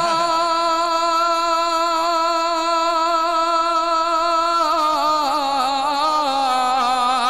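A man singing a naat through a microphone, holding one long note with a slight waver for about four and a half seconds. The note then dips a little in pitch and is held again.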